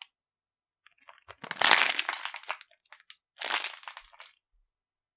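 Crackly crunching and crinkling noise in two bursts: a louder one about a second and a half in and a shorter one near four seconds in.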